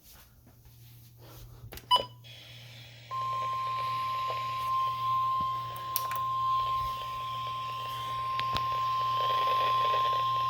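NOAA Weather Radio warning alarm tone: one steady, high, unbroken beep that starts about three seconds in and holds, over faint radio static and a low hum. The tone marks a warning broadcast about to be read. A sharp click comes just before the tone starts.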